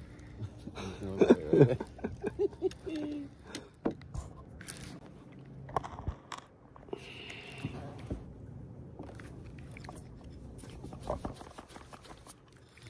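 Close handling noise from a hand and thumb rubbing and knocking against the phone camera, with scattered knocks and clicks. About a second in, a short wordless vocal sound stands out as the loudest part.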